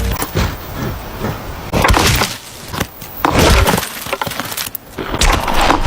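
Two goats ramming each other head-on, their horns and skulls clashing with a few loud, sharp cracks.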